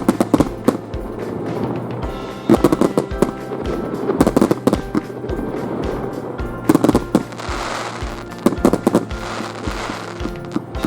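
Aerial fireworks bursting one after another in quick succession, with a crackling hiss from about seven seconds in, over background music.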